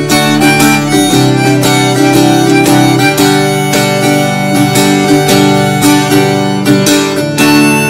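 Instrumental music on acoustic guitar and harmonica: a steadily plucked and strummed guitar rhythm under sustained melody notes.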